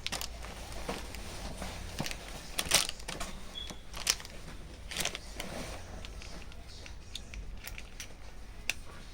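Packaging being handled: irregular crinkling and rustling with sharp clicks and taps every second or so, over a faint low hum.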